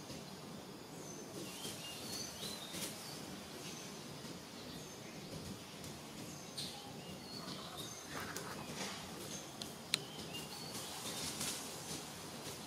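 Outdoor ambience with small birds chirping now and then in short, high notes over a steady background hiss. One sharp click comes about ten seconds in.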